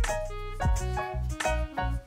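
Background music: melodic notes over a steady beat.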